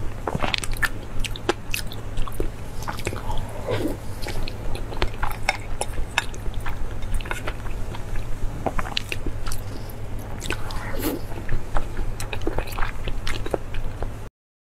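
Close-miked chewing of raw salmon rolls: many short mouth clicks and smacks at an uneven pace over a steady low hum. It stops abruptly near the end.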